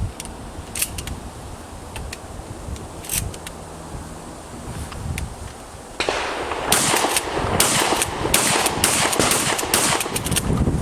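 Pump-action Remington 870 shotgun firing a quick string of shots, densest in the second half, after a few sharp clicks.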